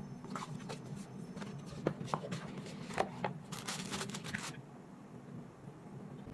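Packaging being handled during unboxing of curtain lights: a run of quick rustles, crinkles and light clicks that grows busier and then stops about four and a half seconds in.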